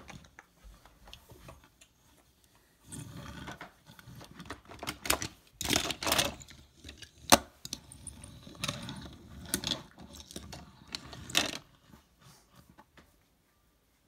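Small hard toy cars clattering and knocking, in an irregular string of sharp knocks with the loudest around the middle.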